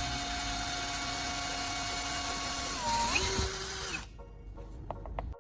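Electric drill running steadily as it bores a hole into a small wooden block. Its pitch rises about three seconds in and it stops about a second later, followed by a few faint clicks.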